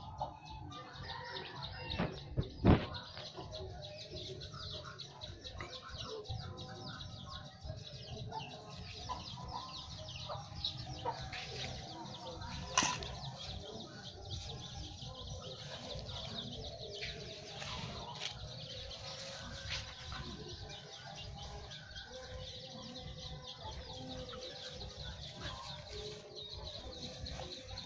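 Outdoor yard ambience: steady rustling with birds chirping, broken by two sharp knocks, the louder about three seconds in and another about thirteen seconds in.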